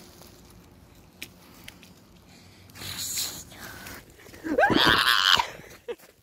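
A person's loud, harsh yell about four and a half seconds in, its pitch sweeping sharply upward at the start. A short rushing hiss comes just before it.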